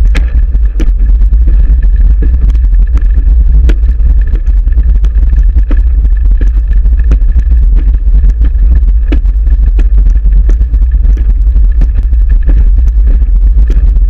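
Heavy, steady rumble and wind noise on a camera mounted to a racing wheelchair rolling fast over a track, with scattered clicks and knocks and a faint steady high whine.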